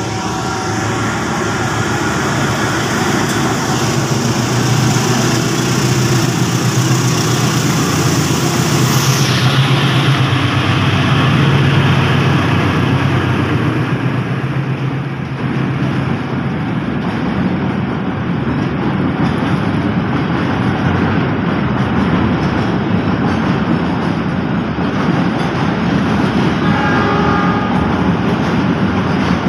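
Diesel-electric freight locomotive running past at close range, its engine hum strongest for the first dozen seconds. It is followed by a long string of Pertamina fuel tank wagons rolling by with steady wheel-on-rail rumble.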